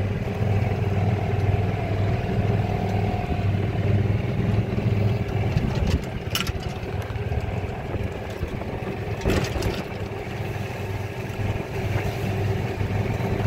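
Golf cart driving along a paved cart path: a steady low motor drone with a constant hum. Two short knocks or rattles sound, about six and about nine seconds in.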